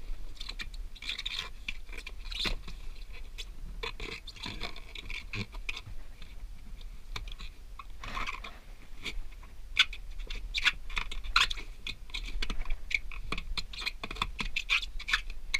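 Foam pool noodle rubbing and scraping against the plastic rim and walls of a kayak's center hatch as it is worked into place by hand. Irregular clicks and taps of plastic come throughout, more of them in the second half.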